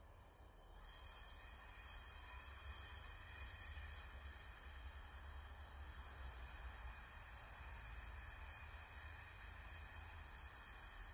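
Oxy-fuel brazing torch flame hissing steadily while heating a bronze fitting. The hiss is faint and even, growing a little louder in the first two seconds.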